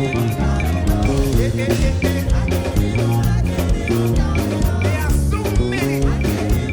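Upbeat church praise music from a band, with a bass line, a steady drum beat, guitar and singing.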